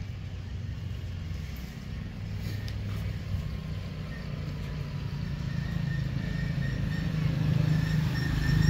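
A motor running steadily with a low hum, growing gradually louder.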